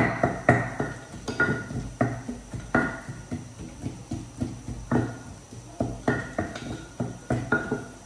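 A wooden pestle pounding in a mortar, crushing ingredients for a tomato chili dip: a dozen or so thuds at an uneven pace of one to two a second, each with a short ringing tone.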